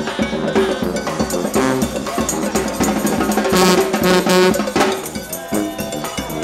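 Live New Orleans brass band playing an upbeat tune: sousaphone, trumpets and trombone over drums. The horns swell to a loud, bright blast about three and a half seconds in and hold it for about a second.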